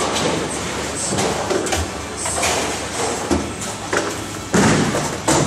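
Bowling alley noise: balls rolling and impacts from the lanes, with a loud clattering crash of bowling pins about four and a half seconds in and another short crash just before the end.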